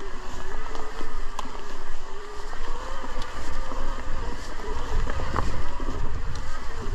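Mountain bike running down a dirt trail: the rear hub's freewheel buzzes as the rider coasts, its pitch drifting up and down with speed, over a low rumble of tyres and wind, with scattered clicks and rattles from the bike.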